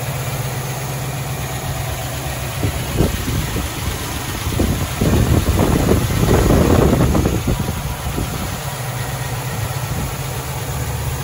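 Land Rover 110's Rover V8, fitted with tubular headers and a Holley carburettor, idling steadily. It gets louder and rougher for about three seconds in the middle.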